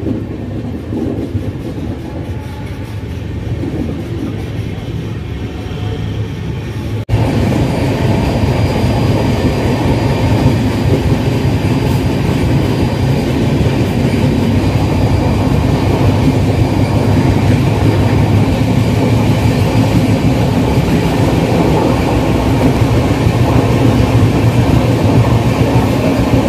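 Quieter station ambience, then after an abrupt cut about seven seconds in, a passenger express train running at speed: steady, loud wheel-on-rail running noise heard from aboard the coach.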